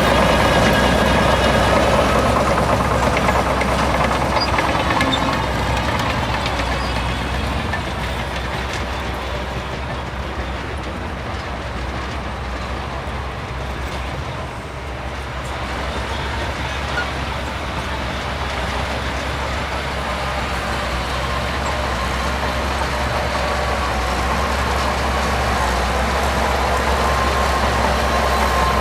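Bulldozer's diesel engine running under load, with a whine that rises and falls near the start. The sound eases off a little in the middle and builds again toward the end.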